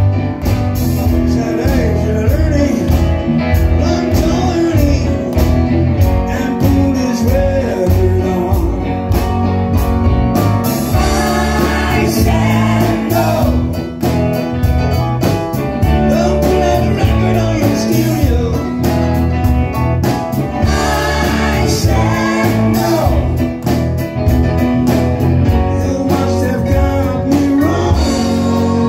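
Live rock band playing loud and steady: electric guitar, drums and keyboards, with women singing lead and harmony vocals.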